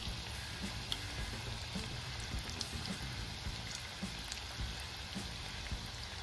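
Onion-and-gram-flour fritters (kanda bhaji) deep-frying in hot oil in a steel kadhai: a steady sizzle with scattered small crackles and pops.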